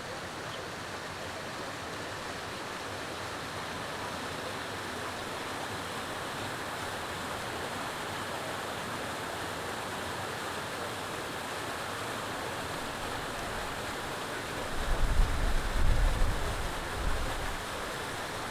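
Steady rushing noise, like flowing water or a distant traffic wash, with a few low rumbling gusts of wind on the microphone about fifteen seconds in.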